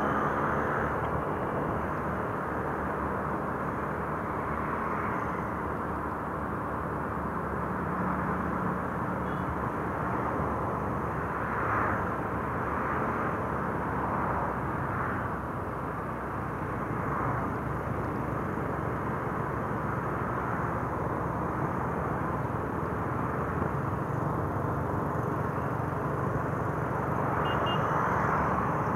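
Motor scooter riding along a street: steady engine and road noise with no sudden events.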